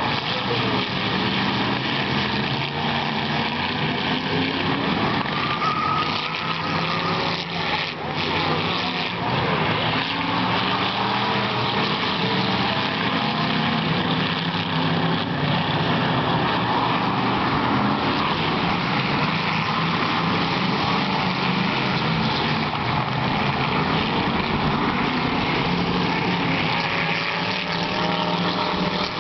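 Several hit-to-pass race cars' engines running together on a short oval track, a continuous din with engine pitches rising and falling as the cars rev and slow.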